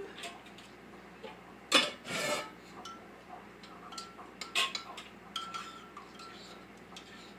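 Metal spoon stirring soup in a ceramic mug, clinking against the sides several times, with a louder brief noise about two seconds in.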